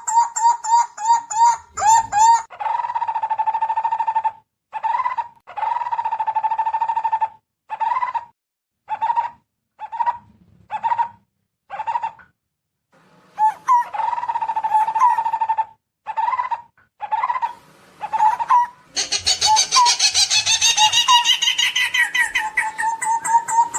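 Barbet calls: fast series of hollow notes all at one pitch, some runs blurring into long drawn-out trills, broken by short pauses. In the last few seconds a denser, higher chattering of other birds joins over them.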